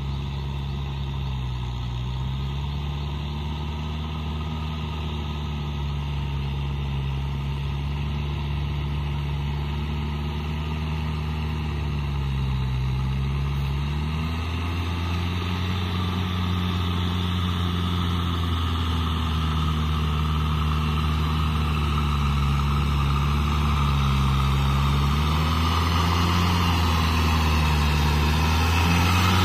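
Kubota tractor's diesel engine running steadily while pulling a leveling board through a flooded, muddy paddy. The engine note dips and recovers several times under the drag and grows louder as the tractor comes close, with the churning of mud and water rising near the end.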